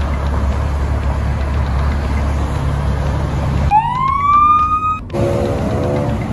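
Freeway traffic rushing past with a low rumble. About three and a half seconds in, a siren starts with a rising wail that levels off for about a second. Then the traffic noise returns, with a steady low-pitched hum in it.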